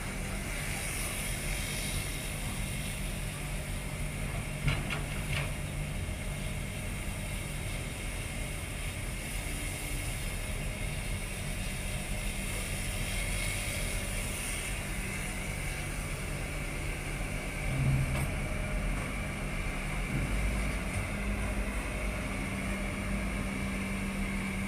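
Hydraulic crawler excavator's diesel engine running steadily as it digs and loads mud into a dump truck, with two sharp knocks about five seconds in and a heavier thump later on.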